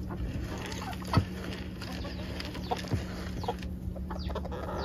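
Chickens clucking softly, with a few light knocks and a steady low hum underneath.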